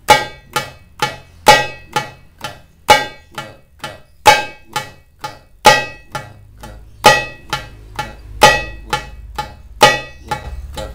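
Darbuka played with the left hand's index finger near the rim: single tek strokes about two a second, in groups of three with the first of each group accented and clearly louder. This is a left-hand finger-loosening drill in a three-count.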